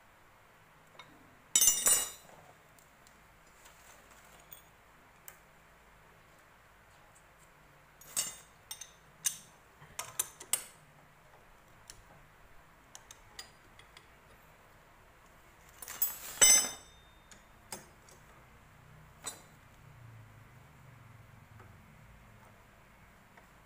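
Metal parts and hand tools clinking and clattering at a motorcycle's open engine case as a gear is handled. There are two louder clattering bursts, about two seconds in and about sixteen seconds in, with scattered lighter clinks between.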